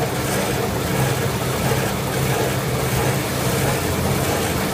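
Automatic band saw toilet paper log cutting machine running, a steady mechanical drone with a constant low hum.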